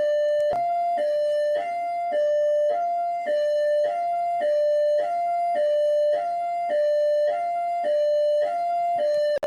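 Rio de Janeiro Military Police (PMERJ) car siren in hi-lo mode: two steady tones, a higher and a lower, alternating evenly about twice a second.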